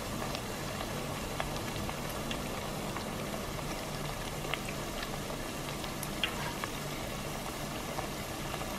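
Flattened green plantain slices (tostones) deep-frying in hot oil in a stainless steel pot, on their second fry after being pressed flat. The oil bubbles steadily with scattered small pops and crackles.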